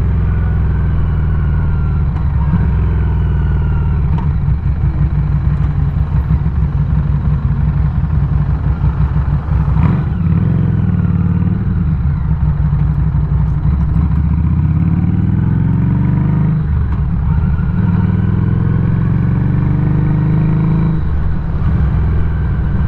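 Harley-Davidson Street 500's liquid-cooled V-twin engine running under way, the revs climbing and dropping back several times as it pulls through the gears. A short knock comes about ten seconds in.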